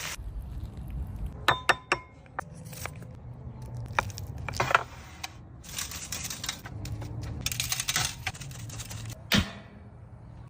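Hard crab shell being cracked and handled while eating: irregular sharp clicks and cracks, a quick cluster about a second and a half in, more in the middle and one more near the end, a few with a short ring.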